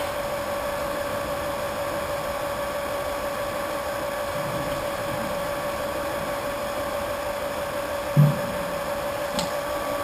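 Small electric pump running steadily with an even hum, pumping wort through a plate chiller. A brief low thump sounds about eight seconds in.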